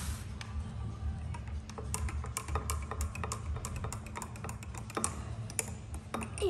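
Long spoon stirring a latte macchiato in a tall glass, clinking against the glass again and again in quick, uneven ticks, over background music. A girl's short vocal sound, like a laugh, comes near the end.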